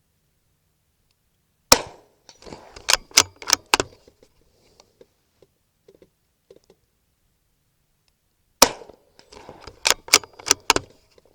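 Two unsuppressed shots from a Savage bolt-action .22 LR rifle, about seven seconds apart. Each shot is followed by a quick run of four sharp metallic clicks as the bolt is worked to eject the case and chamber the next round.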